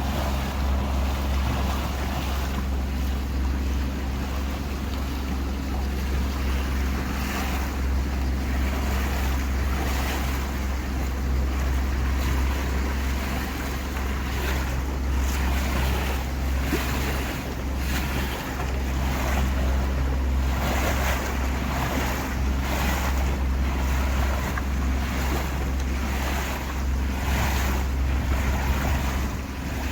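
Tour boat under way: the steady low drone of its motor, with water rushing and splashing along the hull and wind on the microphone. From about halfway there are repeated surges of splashing, about one a second.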